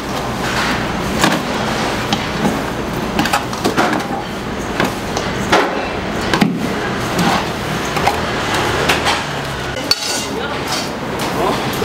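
Metal spoon and stainless steel bowls clinking and knocking repeatedly as batter mix is scooped and stirred, over a busy background of voices.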